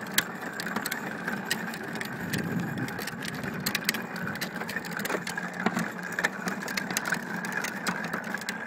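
Hard plastic wheels of a Little Tikes Cozy Coupe ride-on toy car rolling over asphalt as it is pushed: a continuous rumbling rattle with many scattered clicks.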